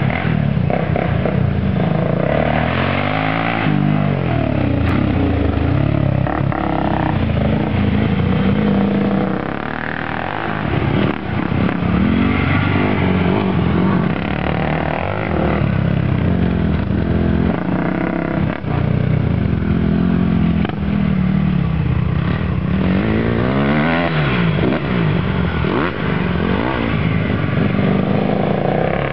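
Four-stroke single-cylinder Honda dirt bike engines revving up and down as they are ridden. The engine note rises and falls over and over with the throttle and gear changes, with brief dips where it backs off.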